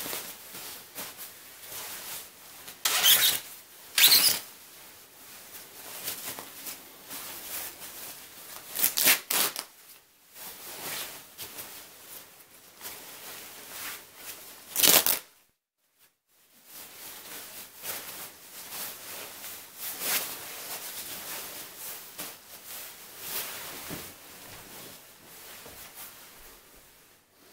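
A shiny quilted jacket being torn apart by hand: loud ripping bursts of the fabric and padding about 3, 4, 9 and 15 seconds in, over steady rustling and crumpling of the slick fabric. The sound drops out for about a second just after the last loud rip.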